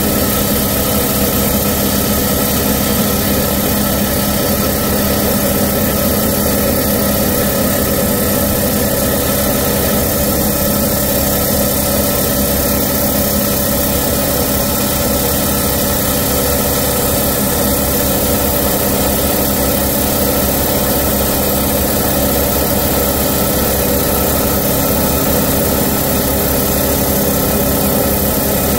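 10-inch Highland Park lapidary slab saw running steadily, its diamond blade grinding through a thunderegg held against it by hand.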